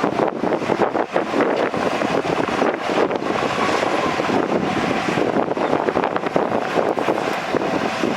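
Heavy diesel earthmoving machinery working, a loud steady rumble with a dense rattle, and wind on the microphone.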